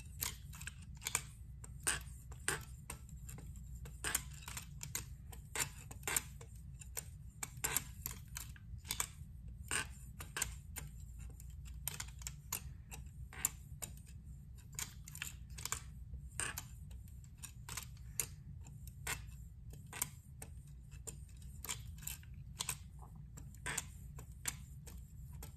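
A knife edge is stropped on a KME guided sharpener with a CBN-loaded kangaroo-leather strop. It makes a string of small, sharp clicks and light scrapes, roughly two or three a second, over a steady low hum.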